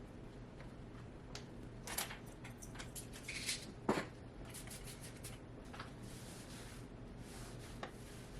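Household items being handled and moved about on a counter: scattered light clicks, knocks and rustling, with one sharper knock about four seconds in.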